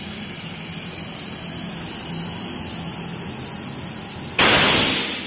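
Steady hiss of air, then about four seconds in a sudden loud blast of air from a bead-seater tank fired at the rim of a large off-road tyre, lasting almost a second and fading. This first blast fails to seat the tyre bead.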